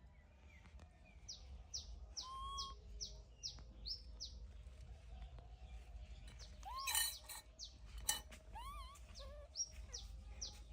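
A bird singing: runs of short, quick, high down-slurred notes, about four a second, in two series, with a few lower rising calls between them. Two sharp clicks come about two-thirds of the way through.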